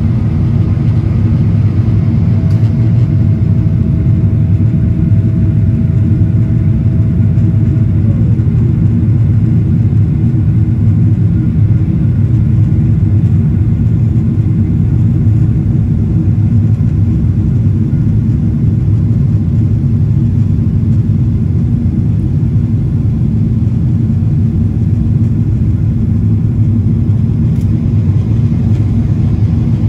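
Steady cabin noise of a Boeing 777-300ER heard from an economy window seat: a loud, deep, even rumble of the GE90 engines and airflow. A faint whine holds from about two seconds in and slides down in pitch about eight seconds in.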